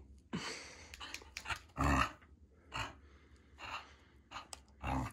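Border collie play-growling in short rough bursts while tugging on a rubber ball toy, the loudest burst about two seconds in. This is play growling in a tug-of-war, not aggression.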